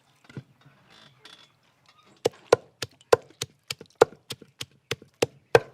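Onions, tomatoes and peppers being mashed down by hand: a steady run of knocks, about three a second, starting about two seconds in.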